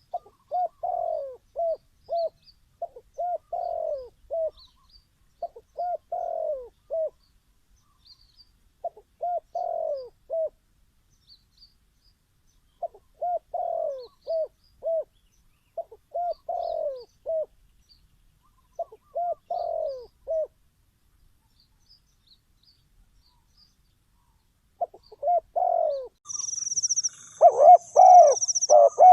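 Spotted dove cooing: phrases of several short coos, a phrase every two to three seconds, with a pause of a few seconds in the middle. Near the end the coos come louder and overlap, and a high buzzing trill starts.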